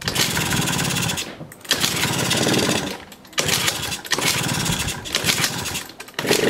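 Yamaha Jog moped's 50cc two-stroke engine being kick-started about five times in a row. Each kick spins the engine for about a second, but it does not keep running.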